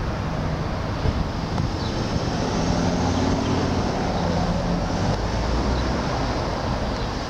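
Steady wind buffeting the microphone, with a low engine hum underneath that strengthens for a couple of seconds midway.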